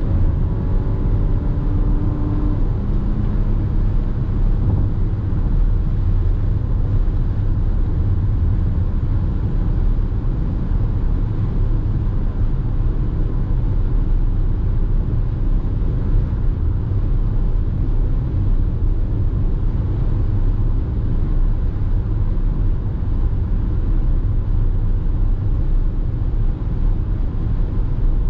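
A 1994 Lexus ES300 with a V6 engine driving at a steady pace, its engine and road noise giving a steady low rumble. A few engine tones slide down in pitch in the first three seconds.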